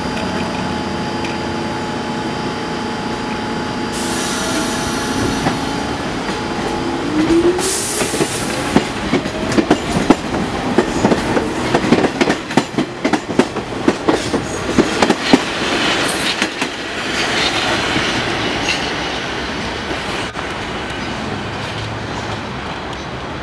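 R46 subway train pulling out of the station: steady tones while it stands, a hiss about four seconds in, then a rising whine as it speeds up. Its wheels clack sharply over the rail joints as the cars pass, and the sound fades as the train leaves.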